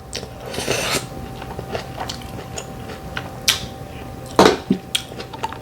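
A person eating close to the microphone: biting and chewing with scattered sharp clicks, a short rushing slurp-like noise about half a second in, and the loudest click a little over four seconds in. A faint steady hum runs underneath.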